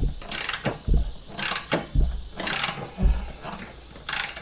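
Ratchet wrench clicking in short bursts, about one a second, as it turns the centre screw of a three-jaw gear puller on a mower-deck spindle pulley, with dull knocks in between. The puller is bending the pulley's lip rather than drawing it off the spindle.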